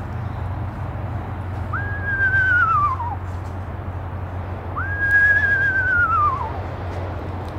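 A person whistling an imitation of an eastern screech owl's descending whinny, twice. Each call holds a high note, then slides down with a quavering wobble.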